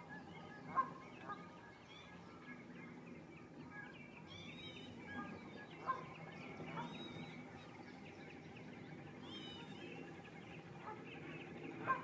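Wetland birds calling: a busy chorus of short high chirps and whistles, with a few louder, sharper calls standing out about a second in, around six seconds, and again at the end.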